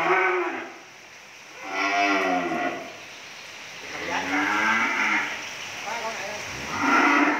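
Cattle mooing: a call at the start, then three more about a second long each, every two seconds or so.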